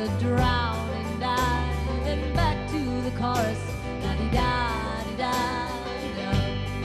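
A song playing: a singing voice with gliding notes over guitar, sustained bass and a steady beat.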